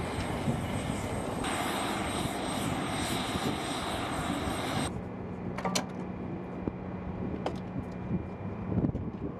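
Aircraft engines running steadily on a flight line, a wide noise that drops about five seconds in to a quieter steady hum. A few sharp clicks and knocks come through in the second half.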